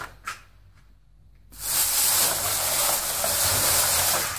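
Thin plastic bag, a yellow recycling sack, rustling and crinkling as a hand rummages in it, starting about a second and a half in and lasting nearly three seconds. Two short clicks come just before it.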